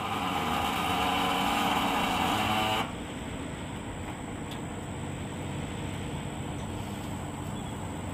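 Electric forklift's motor whining with a stack of steady tones as it moves the load, then cutting off abruptly about three seconds in. A steady low rumble continues afterwards.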